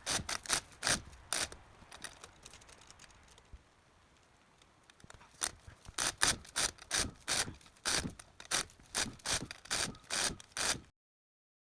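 Chain hoist being worked by hand: a run of rattling, clicking strokes from the chain and ratchet, a quieter pause of a few seconds, then strokes at about three a second that cut off abruptly near the end.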